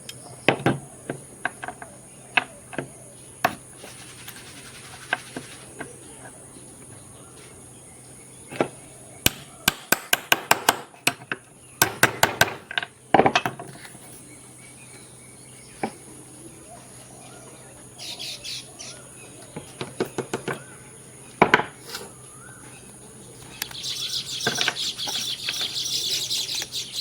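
Sharp knocks and taps of a tool striking and cutting into an old dry-cell battery to get at its carbon rod, with scattered single hits and several quick runs of strikes. Birds chirping near the end.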